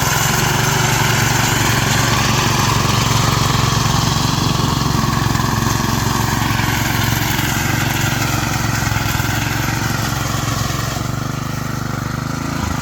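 Rice reaper machine's small engine running steadily under load. The sound softens slightly near the end as the higher part fades.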